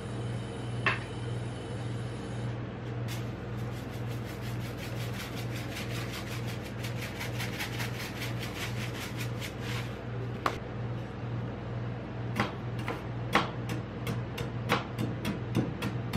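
Over a steady low hum, a fast, even run of fine ticks from about three to ten seconds in as sprinkles are scattered onto the ice cream base. Then from about twelve seconds in come sharp clacks of steel spatulas striking the steel cold plate of a rolled ice cream pan as they begin chopping.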